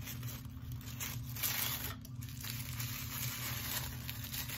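Tissue paper crinkling and rustling as a small wrapped gift is unwrapped by hand, loudest about a second and a half in.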